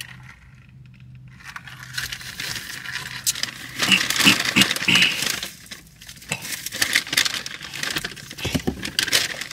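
Paper fast-food bag and wrappers rustling and crinkling as they are handled, in irregular bursts starting a second or two in.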